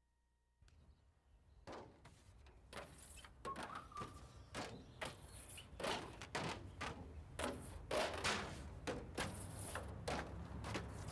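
Footsteps of several people walking on concrete, a quick irregular patter of shoe strikes that grows louder as the walkers approach.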